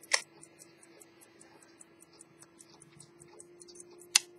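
Antique Swiss ultra-thin pocket watch movement from about 1840–1865 ticking evenly at about five ticks a second, running after repair. Two louder single knocks stand out, one just after the start and one near the end.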